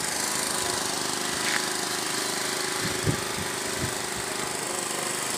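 Small engine running steadily with a fast, even beat.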